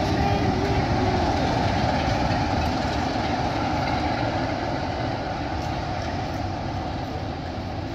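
A passenger train receding along the track, its rear diesel locomotive and coaches making a steady rumble of engine and wheels on rails that slowly fades as it moves away.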